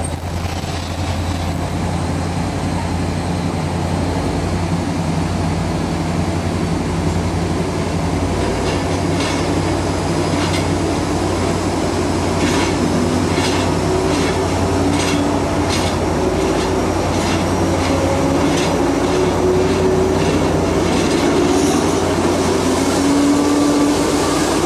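Passenger train hauled by a VR Dr13 twin-engine diesel locomotive, heard from inside a carriage as it pulls away: a steady low engine drone with tones that rise in pitch. From about nine seconds in, the wheels click over rail joints at an even pace.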